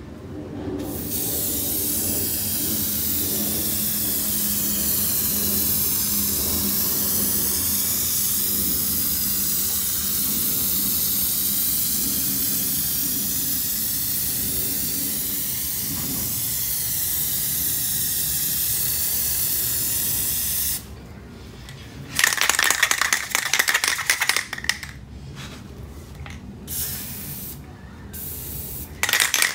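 Aerosol can of Plasti Dip spraying in one long steady hiss that cuts off after about twenty seconds. It is followed by the can being shaken, its mixing ball rattling in quick irregular bursts.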